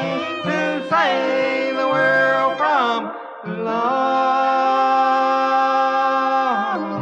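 Bluegrass gospel band (mandolin, banjo, fiddle, guitar, bass) playing the closing bars of a song. A lead line slides between notes, then after a brief dip holds one long final note, which releases near the end.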